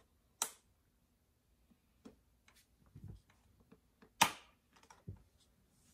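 Sharp mechanical clicks from a Smithsonian planetarium projector as it is advanced from one planet image to the next: one about half a second in and a louder one about four seconds in, with softer clicks and a few low handling thumps between.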